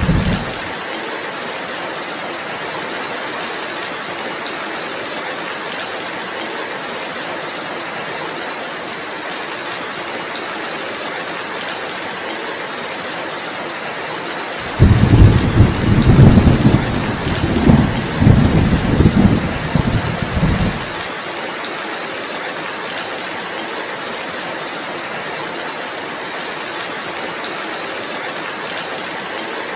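Steady heavy rain hissing throughout. A deep thunder rumble fades out in the first second, and another rolls in about halfway, surging several times over some six seconds before it stops abruptly.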